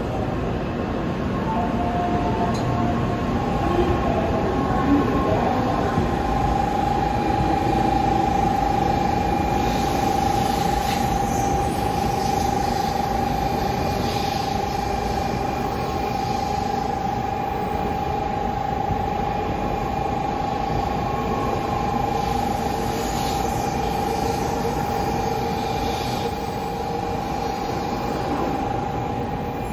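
JR West N700 series Shinkansen, 5000-subseries set K3, pulling out of the platform and gathering speed as its cars slide past. A steady high electric whine, which sets in about three seconds in, rides over the running noise.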